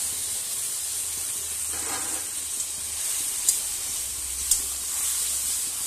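Spice paste sizzling in hot mustard oil in a kadai: a steady high hiss as the masala fries, with two sharp ticks near the middle.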